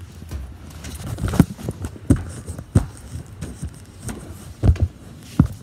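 Footsteps of a person walking, with knocks and rubbing from the handheld phone: a string of irregular thumps.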